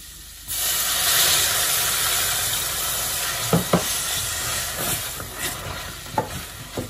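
Chicken broth poured into a hot butter, onion and flour roux in a stainless steel saucepan, bursting into a loud steamy hiss and sizzle about half a second in, then slowly dying down. A few knocks of the spoon against the pan come through as it is stirred.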